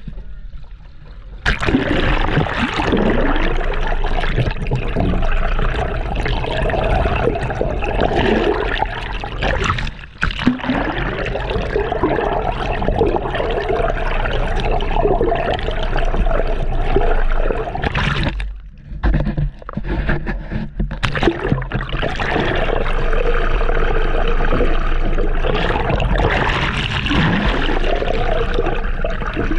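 Seawater gurgling and sloshing close to the microphone, full of short bubbling glides in pitch, dropping away briefly near the start and again about two-thirds of the way through.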